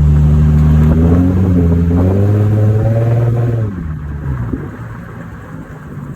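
Nissan 350Z's V6 engine pulling under acceleration while driving, its pitch rising steadily for a few seconds and then dropping off sharply about three and a half seconds in, running quieter after. This is the test drive after the rusty wheel-spacer studs were replaced to cure a clicking from the wheels.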